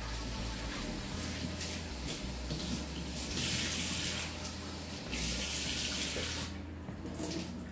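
Kitchen tap running as mushrooms get a quick rinse under the stream. The water grows louder twice in the middle and stops about a second before the end.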